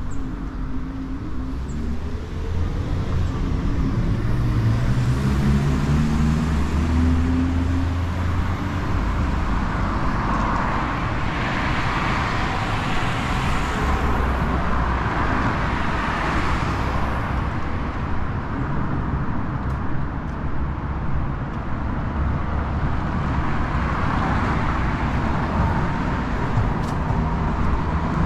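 Road traffic on a city street: a vehicle's engine speeds up, rising in pitch over the first several seconds, then cars pass by with swelling tyre noise, twice near the middle and once more near the end, over a steady low rumble.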